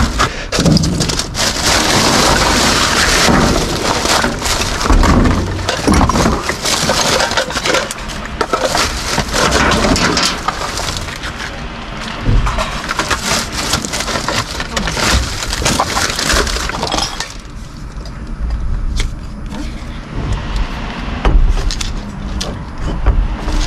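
Thin plastic carrier bag rustling and crinkling as hands rummage through packaged items inside a metal bin, with small knocks and clicks of packaging and plastic items. The crinkling eases for a few seconds past the middle, then picks up again.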